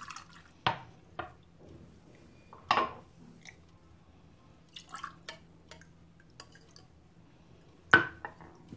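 Blended thandai being poured from a mixer jar into drinking glasses, the liquid dripping and splashing faintly. Sharp knocks of glass and jar on the hard countertop break in several times, the loudest near the end.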